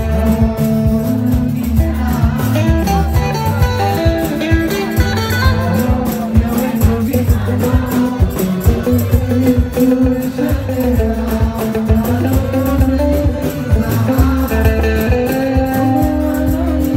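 Live band music with a steady beat in the low end and a singing voice over it.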